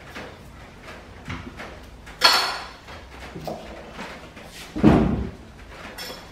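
Kitchen handling sounds at a counter: small clicks and knocks of dishes and utensils being moved. There is a sharp, bright clatter about two seconds in and a heavier, duller thud near five seconds.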